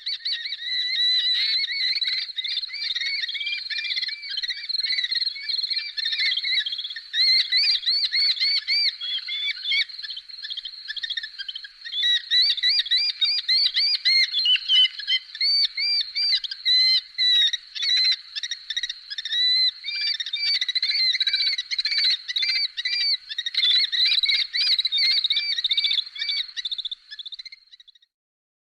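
Recorded bird-of-prey calls: a dense, rapid run of high, chirping, arched notes repeated over and over, louder from about seven seconds in and cutting off abruptly near the end.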